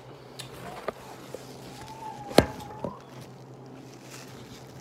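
A phone camera being handled and set back down on a table: small taps, one sharp knock about halfway through and a softer knock just after, over a steady low hum.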